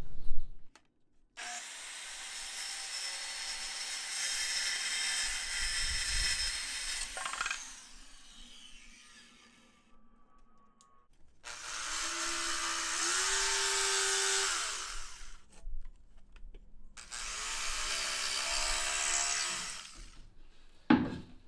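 A hand-held electric power saw cutting a plywood bulkhead along a traced outline. It runs in three separate cuts with pauses between them, and its motor pitch climbs and then holds during the middle cut.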